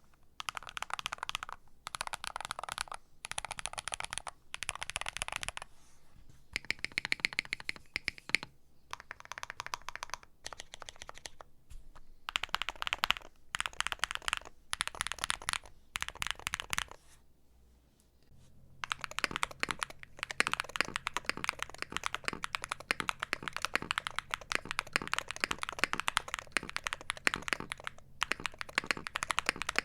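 Typing on a Frog Mini Leggera mechanical keyboard fitted with Hall-effect magnetic switches (Duhuk and WS Flux): dense keystroke clatter in runs of a second or two with short gaps. After a pause a little past halfway it turns into one long unbroken run of typing.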